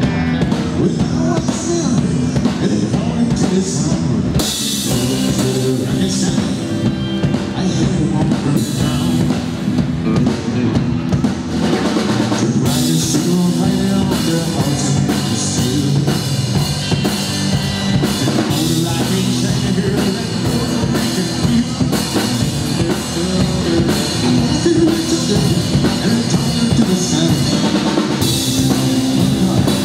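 Live rock band playing a song: electric and acoustic guitars and bass guitar over a drum kit beat.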